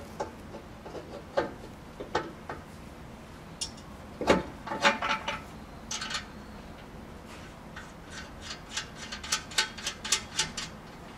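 Hand-tool work on a Hyundai Porter II's exhaust from underneath: scattered metal knocks and scrapes, the loudest about four seconds in, then near the end a quick run of ratchet-wrench clicks, about four a second.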